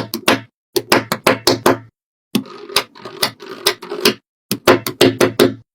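Quick sharp clicks and taps in short runs of several a second, broken by brief gaps of silence.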